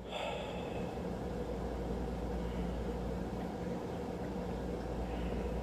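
Steady low hum and hiss of room background noise.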